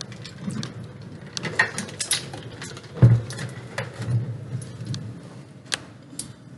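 Kitchen handling noises: scattered light clicks and knocks, with a heavier thump about three seconds in.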